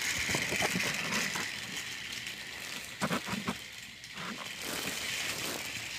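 Battery-powered Thomas toy engine's motor and gears whirring steadily as it pulls two coaches around plastic track, with clicks as the wheels run over the track joints, a cluster of them about three seconds in.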